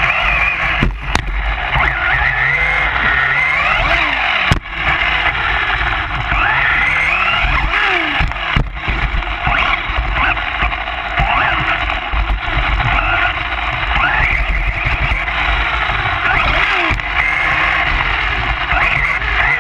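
Electric motors of radio-controlled short course trucks whining, the pitch rising and falling again and again as they accelerate and slow, with a low rumble underneath and a few sharp knocks.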